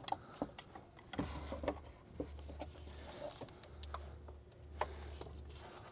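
A flathead screwdriver prying at the plastic quick-connect clip of a PCV breather hose, working it over the edge of its fitting: a string of light, irregular clicks and scrapes.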